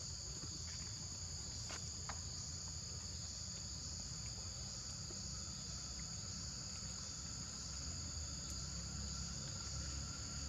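Chorus of forest insects, a steady high-pitched drone with a faint regular pulse.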